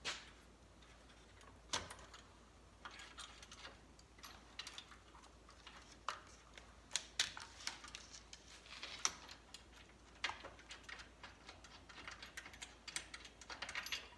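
Irregular light clicks and taps of a wrench working the exhaust temperature sensor loose on a snowmobile exhaust, a few at a time with short pauses between.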